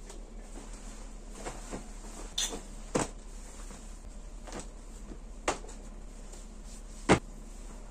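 Clothes being handled and set down on an office chair: a few scattered light knocks and clicks, the sharpest one near the end, over a steady low hum.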